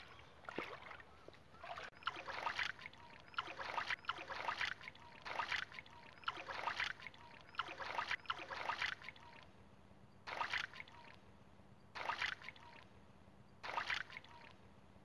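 Hands sloshing and splashing in shallow muddy water while groping in a mud hole for eels, about one splash a second, then three slower, spaced splashes near the end.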